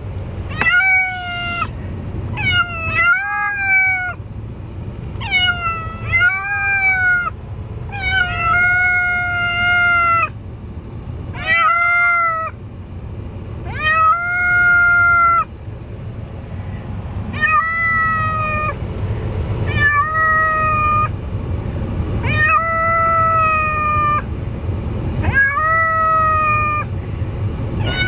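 Domestic cat meowing again and again from inside a plastic pet carrier: about a dozen long, drawn-out calls, each bending in pitch, every two seconds or so. These are the distressed cries of a cat just back from spay surgery.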